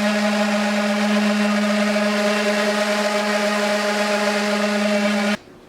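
An electric power tool's motor running at one steady pitch, then cutting off sharply near the end.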